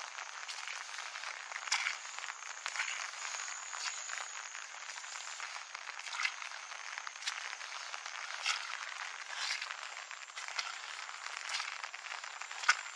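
Footsteps on a wet dirt path, about one a second, over a steady hiss of rain-soaked countryside with frogs calling and a thin steady high tone; one step near the end is sharper and louder than the rest.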